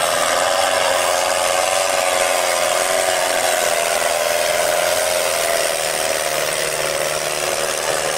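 New Holland 3630 tractor's diesel engine running hard at high revs under heavy load while dragging a disc harrow through loose dirt. The high, steady engine note wavers and sags slightly about halfway through.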